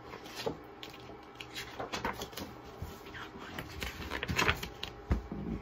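A paperback picture book being handled and opened, its cover and pages turning with paper rustling and a few soft knocks and taps, the firmest near the end.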